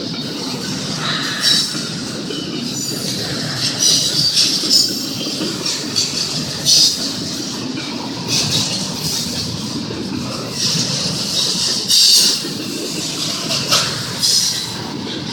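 Union Pacific intermodal freight train rolling past: a steady rumble of wheels on rail, broken every second or two by short high-pitched wheel squeals.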